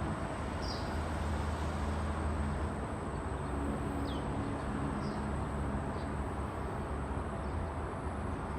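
Steady outdoor background noise with a low hum, a faint constant high whine, and a few short, high, falling bird chirps spaced a second or so apart.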